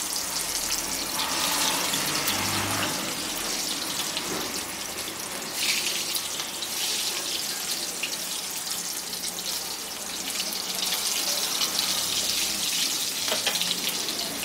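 Stuffed teasel gourds deep-frying in hot refined oil: a steady crackling sizzle, with occasional knocks of a wooden spatula as they are turned over in the pan.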